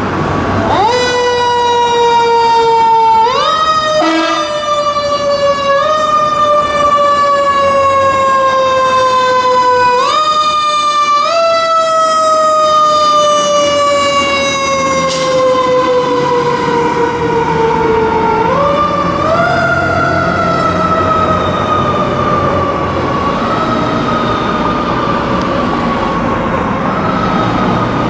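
Fire engine siren on a 2012 KME pumper, wailing as the truck responds. Its pitch winds up quickly and then slowly falls, and it is pushed up again about eight times, fainter near the end.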